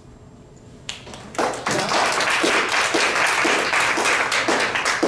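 Audience applauding. A first clap comes about a second in, and steady applause follows half a second later.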